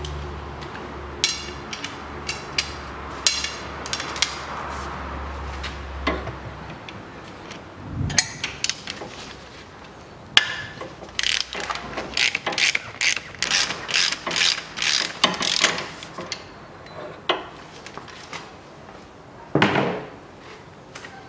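Socket ratchet clicking in short runs as the 14 mm bolt holding the drive-belt tensioner is undone, with a quick run of clicks in the middle. There is a dull knock about eight seconds in and a metal clank near the end. A low background hum stops about seven seconds in.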